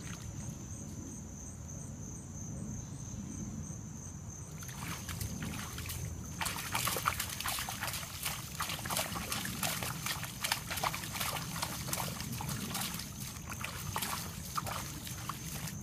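Doberman digging in a shallow mud puddle with its front paws: wet mud and muddy water splashing and sloshing in quick, irregular strokes. The digging turns busier about six seconds in.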